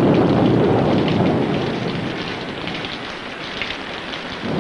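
Thunder over steady heavy rain, from a film soundtrack: a loud roll of thunder fades over about two seconds, and another rumble of thunder starts near the end.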